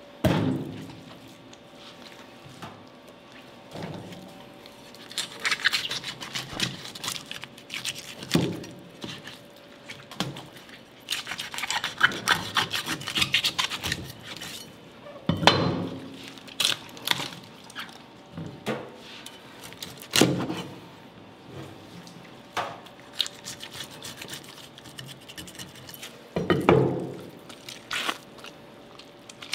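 Heavy knife butchering a large whole fish on a plastic cutting board: dull thuds every few seconds, the first and loudest as the fish is dropped onto the counter, with stretches of scraping and wet crackling as the blade works through the head and the guts are pulled out.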